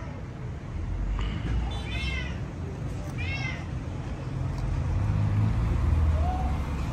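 A cat meowing: two short, high-pitched cries that rise and fall, about a second apart, over a low rumble that grows louder in the second half.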